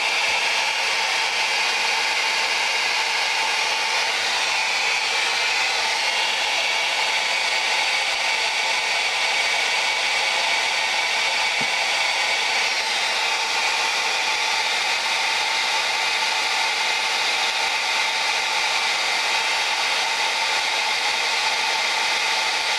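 Steady, unbroken whir of a fan moving air, a loud even rushing noise with faint steady tones in it that does not change.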